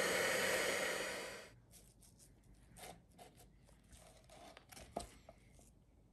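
Electric hand mixer whirring steadily as its beaters work flour into cake batter, fading out about a second and a half in. Then come faint scrapes and soft clicks of a spatula spreading thick batter in a metal bundt pan, with one sharper click near the end.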